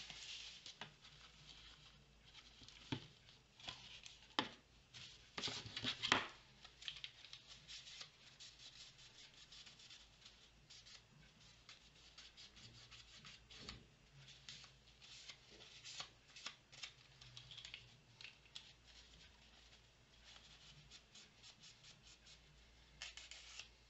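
Scissors snipping card and paper being handled: a run of sharper snips and rustles in the first six seconds or so, then faint, scattered snips and rustling.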